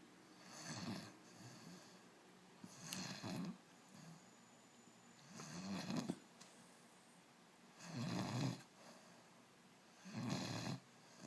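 A sleeping puppy snoring: about five slow, rhythmic snoring breaths, roughly one every two to two and a half seconds, with quiet between them.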